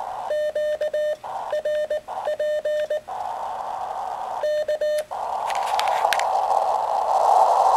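Morse code keyed on a homebrew 2-watt QRP transceiver: its sidetone beeps in dots and dashes for about three seconds and again briefly near five seconds, with the receiver muted between the elements. Between the bursts and after them, narrow-filtered band hiss from the receiver comes up, with a few static crackles near the end.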